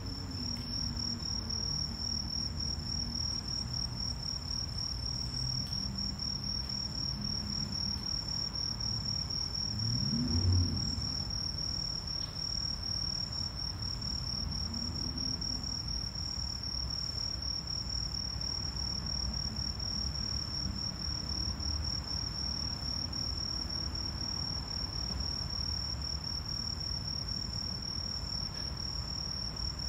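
A steady, high-pitched chorus of night insects chirring without a break, over a low background rumble. A brief low swell rises and falls about ten seconds in.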